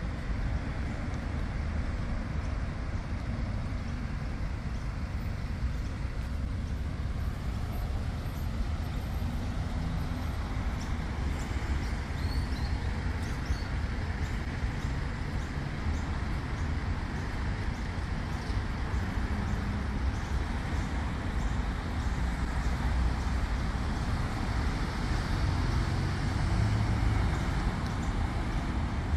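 Steady city street traffic: cars and buses running past with a continuous low rumble, which swells a few seconds before the end as a bus goes by.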